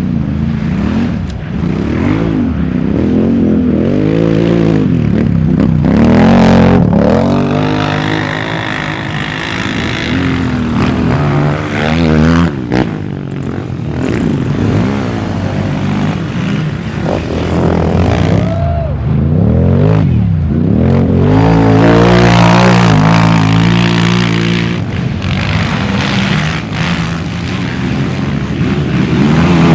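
Several race quads (sport ATVs) with single-cylinder four-stroke engines revving hard and accelerating past, one engine after another, their pitch rising and falling again and again as the riders work the throttle.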